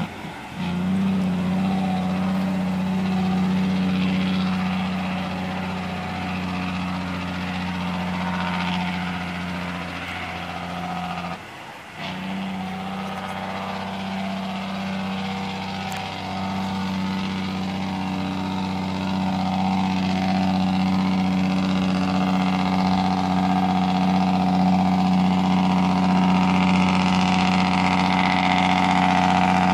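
A vehicle's engine running steadily with a constant drone, dipping briefly twice, once near the start and once about twelve seconds in.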